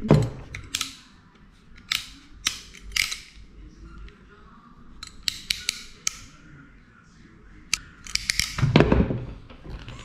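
Klein Tools VDV226-110 pass-thru modular crimper's stripping blade scoring the jacket of a Cat 5 cable: a string of sharp clicks and scrapes as the cable is spun and pulled through. A louder thump comes near the end as the tool is set down.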